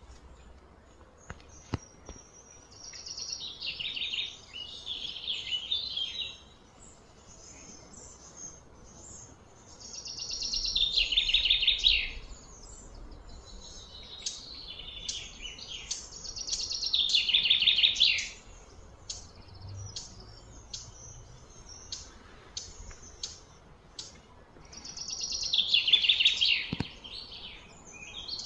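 High-pitched buzzy animal calls in four bursts of about two seconds each, every burst swelling and then stopping, with short chirps scattered in between.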